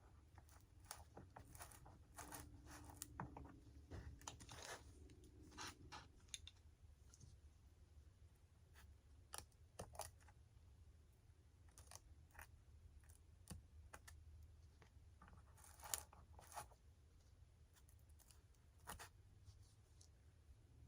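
Faint, scattered clicks and scrapes of hand work on a foam model airplane, over a low steady hum.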